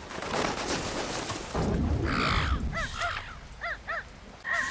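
Crow cawing: four short calls in two quick pairs, over a background hiss.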